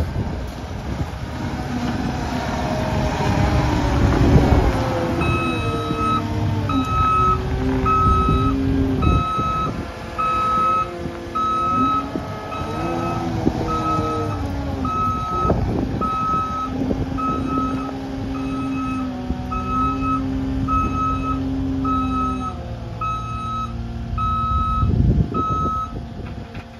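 Cat 279D3 compact track loader's diesel engine revving up and down as the machine works a dozer blade. From about five seconds in, its reverse alarm beeps about once a second.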